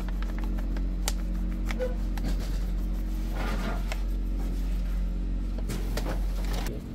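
Steady low electric motor hum of kitchen machinery, with a few light clicks and a brief scrape of a metal scoop in a steel bowl about three and a half seconds in.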